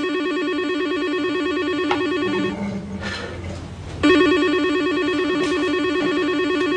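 Electronic telephone ringing with a rapid warbling trill: one ring that stops about two and a half seconds in, then a second ring starting about four seconds in after a short pause.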